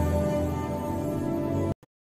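Ambient new-age background music with sustained, layered tones that cuts off suddenly near the end, leaving silence.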